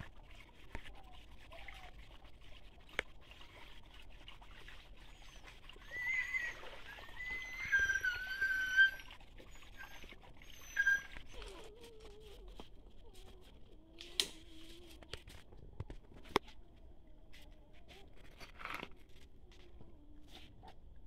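Footsteps clicking over rocks in a shallow creek, with a faint trickle of water. About six seconds in comes a run of short, high-pitched animal calls that stops near the middle.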